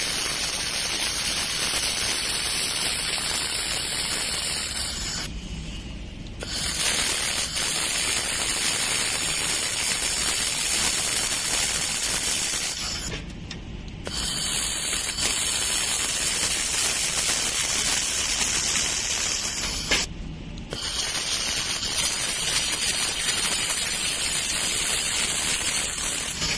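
Laser welding machine at work: a steady hissing, crackling noise that breaks off briefly three times and starts again.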